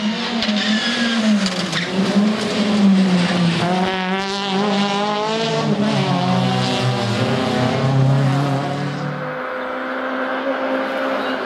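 Škoda Felicia Kit Car rally car engine driven hard on a tarmac stage, the note climbing and wavering through the revs about halfway through, then dropping as the car passes. The sound comes from several spliced clips.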